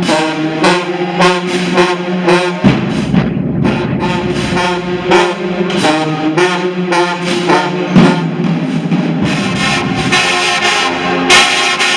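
A high school marching band's brass section plays loud, repeated short chords over drums. The notes briefly thin out a few seconds in, and the band swells brighter and fuller near the end.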